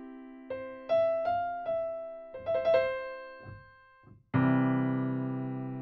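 Sampled C. Bechstein grand piano from the Digital Grand library for Kontakt, playing a few chords and single notes that ring and fade. A fuller, lower chord is struck about four seconds in.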